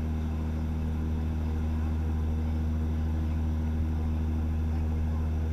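Tour boat's engine running steadily with a low hum, over the rush of water from the wake.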